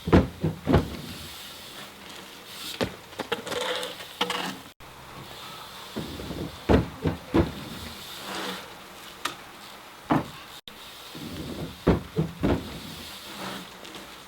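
BMX bike riding on a wooden ramp: tyres rolling on the plywood, with repeated knocks and thumps from the wheels striking and landing on the wood and the bike rattling.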